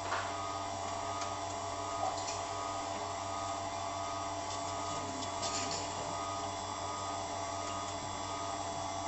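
Knife-grinding machine's electric motor running steadily with a constant hum and whine, with a couple of faint clicks about two and five and a half seconds in.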